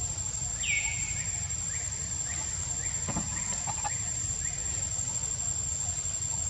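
An animal calling: one high call that falls in pitch just after the start, followed by a run of short falling chirps about every half second, over a steady low rumble of background noise.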